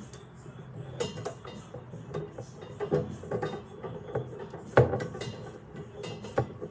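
Metal can-rack parts being handled and knocked together during assembly: irregular light clinks and clicks, with one sharper knock a little before five seconds in.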